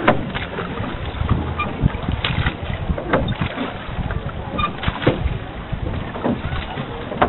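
Wooden rowboat under oar: knocks and splashes from the oar strokes about once a second, unevenly spaced, over a steady rumble of wind on the microphone.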